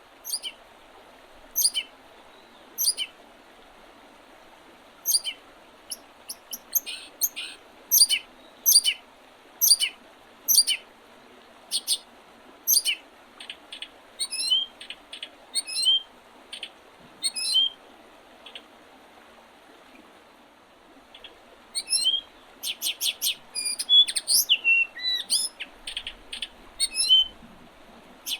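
Small songbirds chirping in short, sharp calls, some sliding down in pitch, spaced out at first and coming thick and fast near the end. Under them runs the steady rush of river water.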